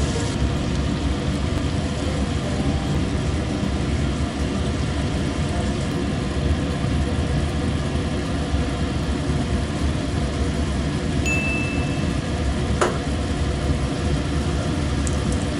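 Squid stir-frying in a pan over a gas burner: a steady low rumble with a light sizzle. About eleven seconds in there is a brief high squeak, and a single sharp tap follows soon after.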